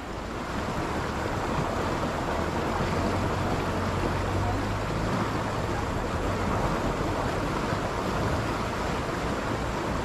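Steady rushing of a fast-flowing, muddy river.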